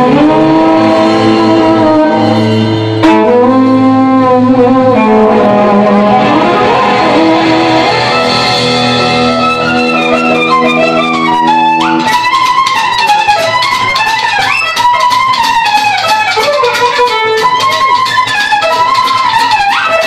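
Live fiddle and guitar music in a tune written to sound like a bird. The violin holds long notes, then about twelve seconds in turns to quick sliding phrases over a steady strummed rhythm.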